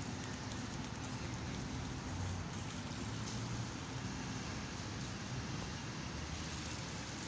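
Steady outdoor background noise: an even hiss with a faint low hum underneath and no distinct events.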